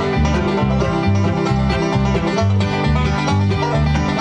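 Bluegrass band playing an instrumental intro: a banjo picks a fast lead over steady, alternating bass notes, without vocals.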